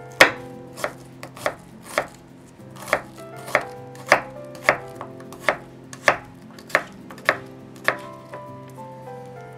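Kitchen knife dicing onion on a wooden cutting board: about a dozen sharp chops, a little under two a second, the blade knocking the board each time. The chopping stops about eight seconds in.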